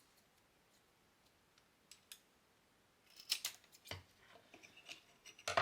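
Scissors cutting a piece of weather stripping: two faint clicks, then a run of short snips starting about three seconds in, with a sharper snip near the end.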